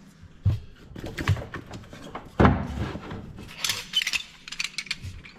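A few knocks and thumps of handling work under a kitchen sink, with a louder thump about two and a half seconds in and scattered lighter clicks.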